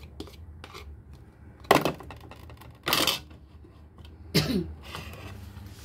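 A metal fork and a small pot clattering against a bowl and a ceramic plate as the last of a mixture is scraped out and the pot is set down: three short, sharp clatters, the first about two seconds in.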